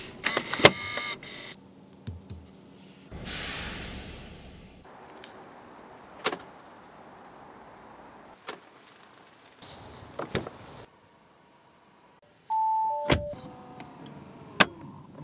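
Audi Q7 controls and body working: a string of sharp clicks and knocks, a motor whirring for about a second and a half, and a two-note falling chime near the end, followed by a loud knock.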